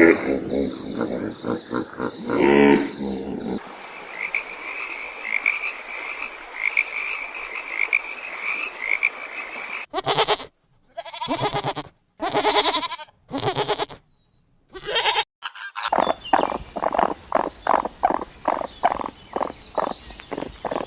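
A string of different animal calls cut one after another. A low call fades out, then a high repeated call runs over a noisy background for about six seconds. Next come several separate loud calls with silent gaps between them, and the clip ends with a fast run of short, rhythmic croak-like calls.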